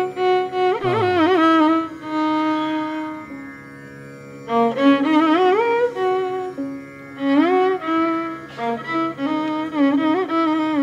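Instrumental Carnatic-style music: a single melody line with sliding, wavering notes over a steady held drone.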